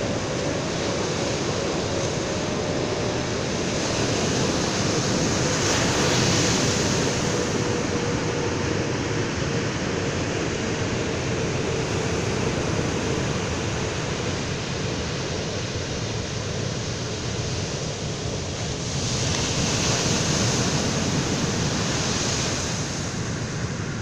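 Ocean surf breaking and washing up a sandy beach, a steady rush of waves that swells louder twice, about six seconds in and again around twenty seconds.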